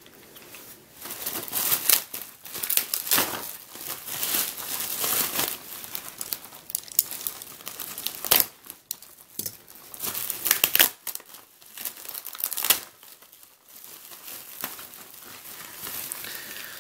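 Plastic bubble-wrap packaging crinkling and rustling as it is handled, in irregular bursts, quieter for a few seconds past the middle.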